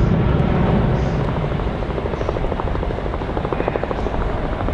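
Boeing P-8 Poseidon's twin CFM56 turbofan jet engines during a low display pass, a loud steady rumble with a rapid flutter that eases slightly.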